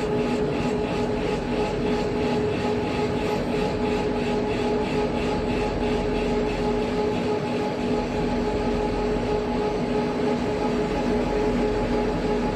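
Three-side CNC milling machine running while machining a valve body: a steady hum with a constant whine over dense machining noise, and a faint rapid pulsing in the first half.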